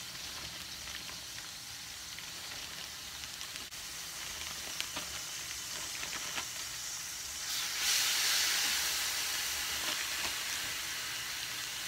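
Vegetables sizzling in hot oil in a small frying pan. About eight seconds in, the sizzle suddenly grows much louder as ground turkey goes into the hot pan, then slowly eases off.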